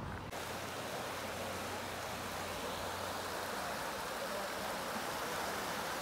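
Steady rush of a fast-flowing creek running over rocks, running high after three days of heavy rain and, by the hiker's reckoning, probably in a small flood.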